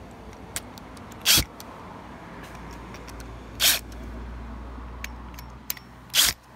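Cordless drill/driver run in three short bursts, about a second in, in the middle and near the end, driving the screws of a camera mounting bracket home into wall anchors.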